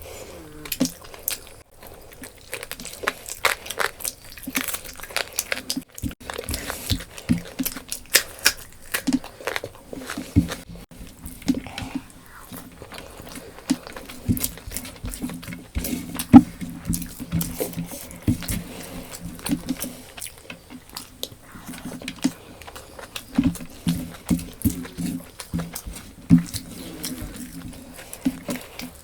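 Close-miked mukbang chewing and biting: a person eating with many sharp mouth clicks and crunches throughout.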